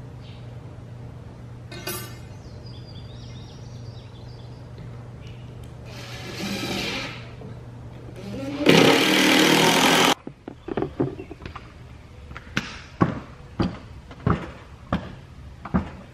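Cordless drill driving screws into a wooden grind box in two short runs, the second louder and about a second and a half long. After it comes a string of sharp, irregular knocks and clicks.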